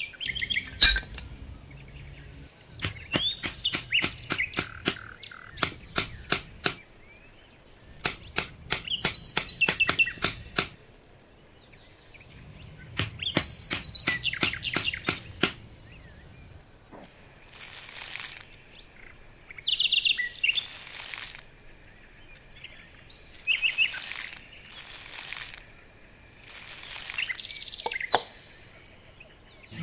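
Birds chirping throughout, over a series of light clicks and taps as small wooden posts are handled and set in place, with several short rustling bursts in the second half.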